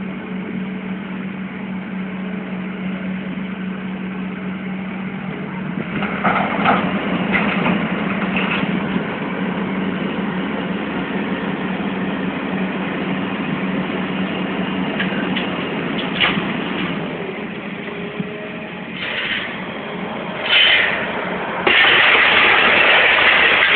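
Heavy diesel demolition machinery running steadily, with bouts of crunching and clattering as the building is broken up, starting about six seconds in. A loud, steady rushing noise takes over near the end.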